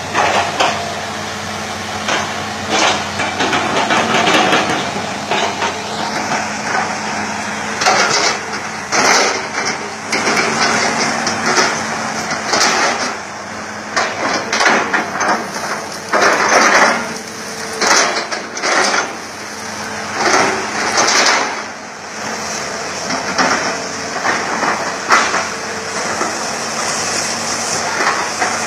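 Hitachi ZX200-5G excavator's diesel engine running steadily under load, with repeated irregular cracks and knocks of the bucket chopping and crushing oil palm trunks.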